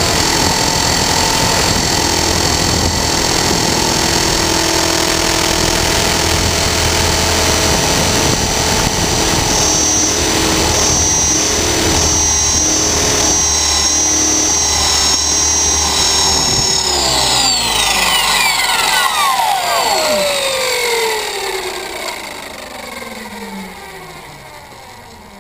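Align T-Rex 450 Sport electric RC helicopter: its motor, gears and rotor whine steadily at flight speed, then spool down, with the whole whine falling in pitch and fading over the last several seconds as the rotor winds down after power is cut.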